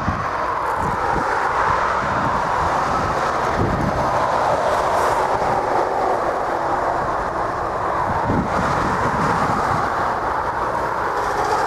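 Jet airliner engines at taxi power: a steady rushing whine over a low rumble that swells and eases slowly.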